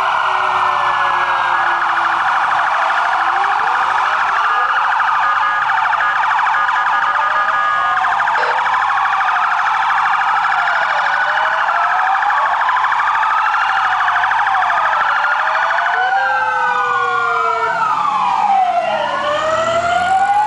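Several sirens sounding together: overlapping wailing tones rising and falling at different rates and crossing each other, over a fast warbling tone in the first half.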